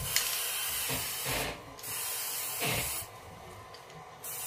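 Aerosol can of velvet food spray hissing in bursts of about a second each, with a short final burst near the end.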